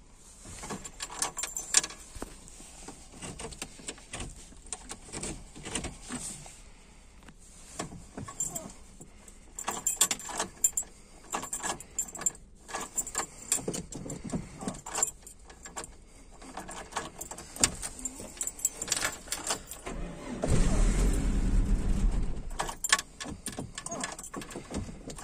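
Irregular light metallic clicks and jangling, like small metal parts being handled, with a louder low rumble lasting about two seconds near the end.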